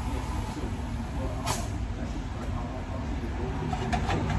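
Steady low mechanical rumble of shop and vehicle noise, with a short hiss about one and a half seconds in and a couple of light clicks near the end.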